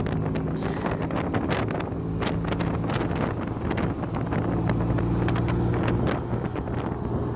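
Engine of an open-cockpit Morgan-replica roadster running on the move, with wind buffeting the microphone. The steady engine note drops away about two seconds in and comes back a couple of seconds later.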